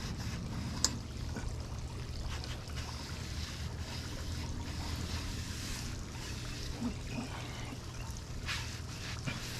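Wind rumbling on the microphone, with light scraping and scrubbing noises and a sharp click about a second in.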